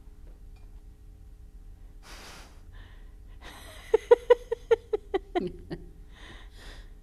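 A person laughing: a run of about eight quick, loud 'ha' pulses that ends in a falling, trailing laugh, with a short breathy burst a little over a second before it.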